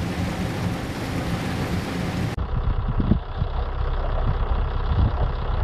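Rushing, churning water. About two seconds in it cuts to an icebreaker working through pack ice: a low rumble with irregular low thumps.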